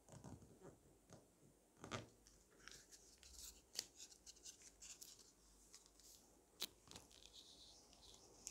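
Faint crinkling and crackling of origami paper as it is folded and creased by hand, in short scattered crackles, with sharper ones about two seconds and about four seconds in.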